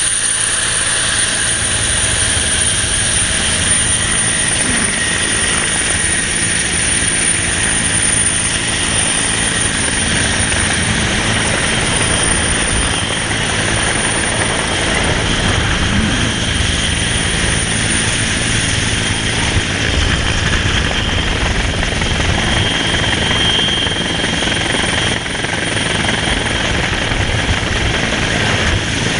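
Rescue helicopter running steadily: a dense rotor rumble with steady high-pitched whines above it.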